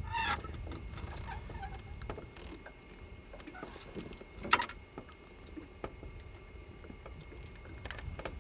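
Scattered light knocks and clicks of handling in a small fishing boat, with one sharp click about four and a half seconds in, over a low steady rumble of wind and water.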